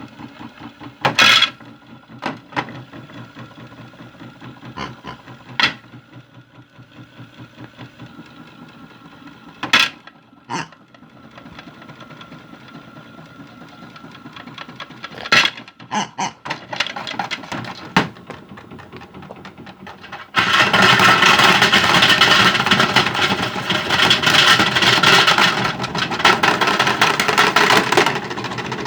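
Small electric motor of a modified Hotpoint toy washing machine running, with hard objects knocking in the drum every few seconds. About twenty seconds in it turns suddenly into a much louder, continuous clatter.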